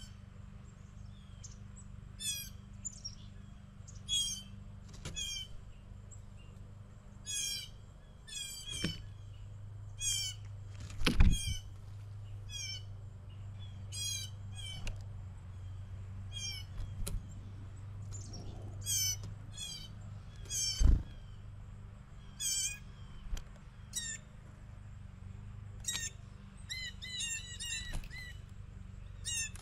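Small songbirds calling again and again: short, high, chattering call notes every second or two, some in quick runs of repeated notes. Two loud thumps cut in, one near the middle and one about two-thirds through, over a faint steady low hum.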